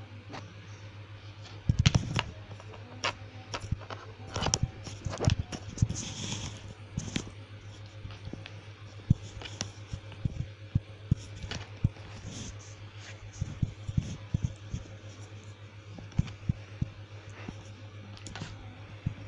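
Scattered soft taps and scratches of a cat shifting about on a plastic laptop lid under a petting hand, busiest in the first half, over a steady low hum.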